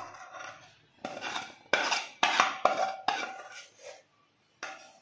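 A metal spatula scrapes thick cooked pera mixture out of a metal pan onto a metal plate: a run of uneven metal-on-metal scrapes and clinks with a faint ringing tone, pausing briefly before one last scrape near the end.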